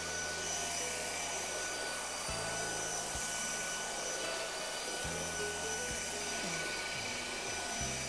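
Electrolux Ultimate Home 700 cordless stick vacuum running steadily in auto mode, a whirring motor with a high whine and the rush of suction as it picks up grit scattered on a wooden floor.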